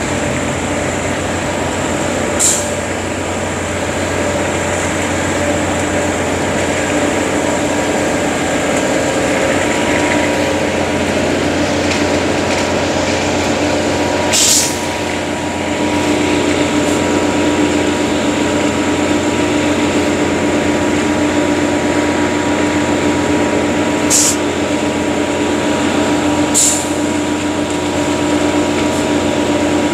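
Concrete mixer truck's diesel engine running steadily, getting louder about halfway through, with four short air hisses.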